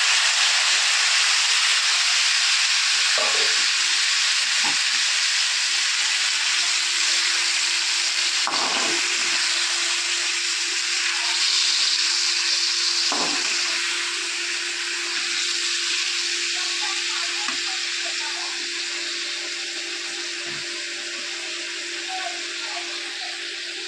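Chopped tomatoes sizzling in hot oil in a metal wok, freshly added, the sizzle slowly dying down. A slotted metal spoon stirring gives a few soft knocks against the pan.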